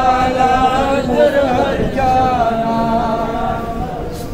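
Men's voices chanting devotional verses without instruments, in long held notes.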